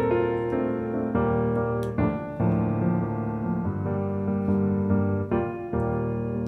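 Background music: gentle electric-piano chords, changing about once a second.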